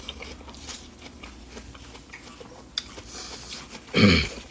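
Close-miked biting and chewing of juicy watermelon dressed with samyang sauce, with scattered small wet clicks and smacks. Near the end comes a short, louder voiced sound falling in pitch.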